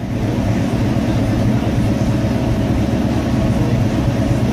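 Car engine running steadily, a low even rumble.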